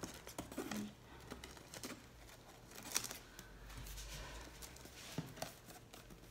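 Scissors snipping at tape on a cardboard box, faint, with light rustling and a few small clicks from handling; the sharpest snip comes about three seconds in.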